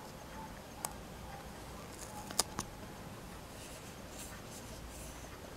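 Fingers handling a small plastic toy piece while putting a sticker on it: light rubbing and three short sharp clicks, the loudest about two and a half seconds in.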